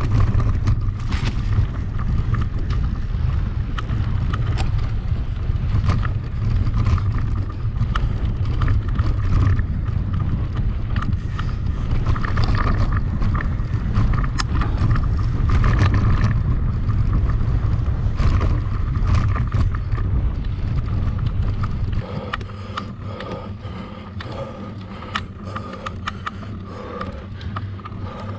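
Mountain bike ridden over a rough trail: heavy wind rumble on the microphone with the clatter and rattle of the bike over bumps. The wind rumble eases about three quarters of the way through.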